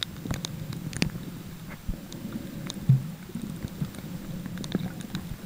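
Underwater sound picked up by a camera held below the surface: a muffled low rumble of moving water, with scattered sharp clicks and crackles and one louder thump about three seconds in.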